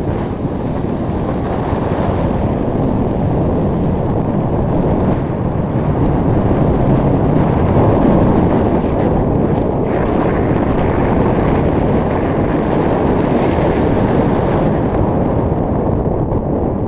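Wind buffeting the microphone: a steady, loud low rumble that swells slightly about halfway through.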